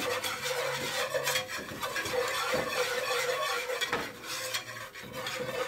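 Metal wire whisk stirring and scraping a thick butter-and-flour roux in a nonstick pan, in quick rough strokes, with a steady hum underneath.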